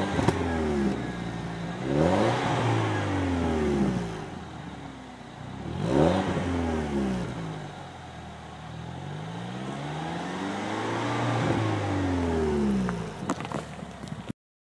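2013 MINI John Cooper Works' turbocharged 1.6-litre four-cylinder engine revved through its twin centre exhaust. There are about four quick blips, each rising sharply and falling back to idle, then a longer, slower rev near the end before the sound cuts off suddenly.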